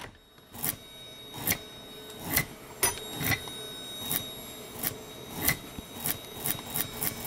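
About a dozen short, sharp scraping strokes, some swelling into a scrape, at uneven spacing and coming faster near the end, over a faint steady hum: workshop tool sounds.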